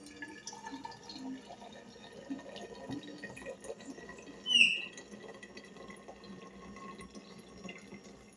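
Faint kitchen sounds of coffee being brewed: small clinks and knocks of utensils with faint trickling water. One brief high squeak about halfway through.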